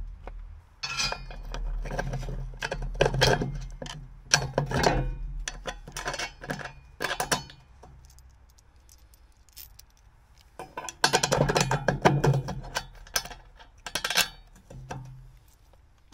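Steel bolts and washers clinking and rattling against a steel bracket as they are pushed through its holes and fitted by hand, in several bursts of clatter with a quieter pause in the middle.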